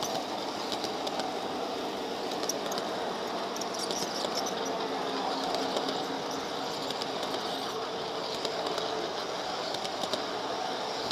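Model freight train running past close by: a steady rumble of its wheels on the track, with scattered light clicks.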